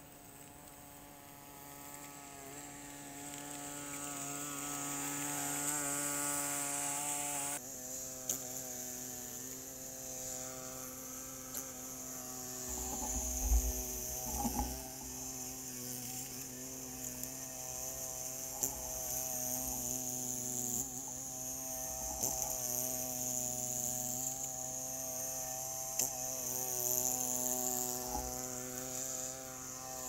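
Two-stage snowblower's gas engine running steadily, its hum growing louder over the first several seconds as the machine comes closer, with an abrupt shift in the sound about a quarter of the way through and a few low bumps near the middle.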